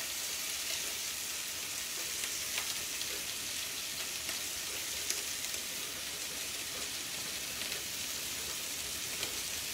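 Steady sizzle of a hot frying pan of seared sea scallops, with a couple of faint clicks about two and a half and five seconds in.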